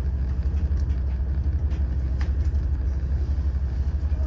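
Steady low rumble of a diesel railcar's engine idling while the train stands, heard from inside the passenger cabin.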